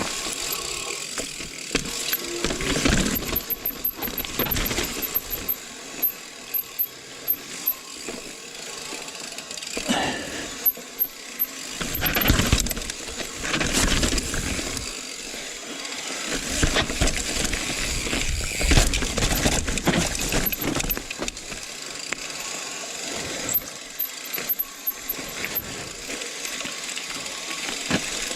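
Rocky Mountain Slayer mountain bike clattering and rattling over rough, rocky trail on a descent, with many irregular knocks and the chain slapping about, since the bike has no chain guide. Runs of quick, high-pitched ticking come and go, typical of the rear hub freewheeling while the rider coasts.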